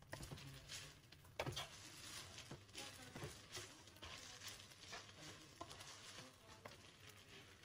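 Faint sizzle of chicken and bell pepper strips stir-frying on high flame in a nonstick kadai, with the soft scrapes and light knocks of a plastic slotted spatula turning the food every second or so.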